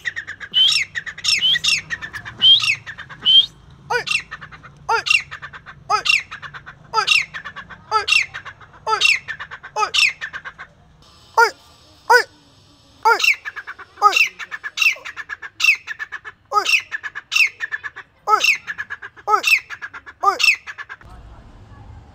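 Grey francolin calling: loud, harsh notes repeated about once a second, each falling sharply in pitch. There are a couple of short breaks in the series.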